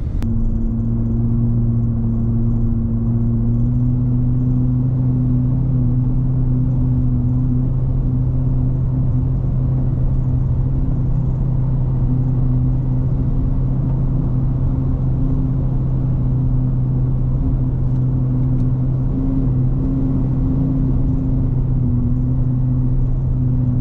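Car engine and road noise heard from inside the cabin while driving at a steady speed: an even, low drone that barely changes.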